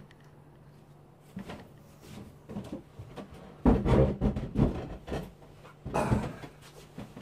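Irregular knocks, thuds and scrapes of a person moving about and settling at a wooden bar counter, loudest in a cluster just past the middle and again briefly near the end.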